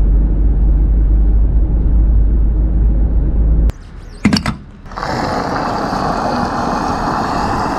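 Motor vehicle noise: a steady low rumble that cuts off abruptly, a brief knock-like burst, then a steadier, fuller running noise with a faint whine over it.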